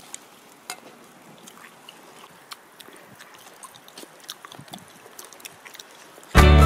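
Faint scattered clicks and small mouth and handling noises of a person eating with chopsticks from a metal cup. Near the end, strummed acoustic guitar music starts abruptly and much louder.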